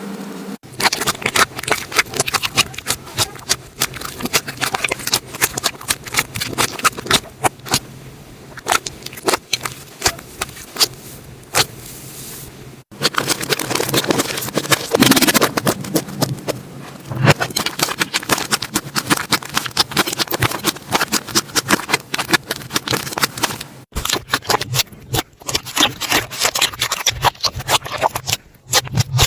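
Slime being squeezed and poked by hand, a dense run of sticky clicks and crackles. The sound cuts off abruptly and changes texture twice, at about 13 and 24 seconds, as one slime clip gives way to the next.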